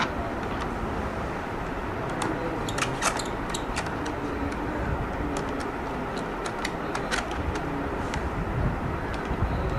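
Irregular sharp metallic clicks and taps of hand tools and parts being handled during motorcycle reassembly, clustered around three seconds in and again around seven, over a steady low rumble of background noise.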